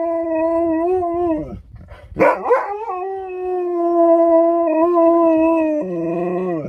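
Alaskan malamute howling in two long, drawn-out howls: the first fades out about a second and a half in, the second starts with a quick rising yelp, holds steady, drops to a lower note near the end and cuts off suddenly.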